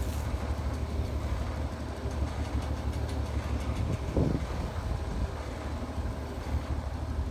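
Steady low rumble of an idling engine, with one brief louder sound about four seconds in.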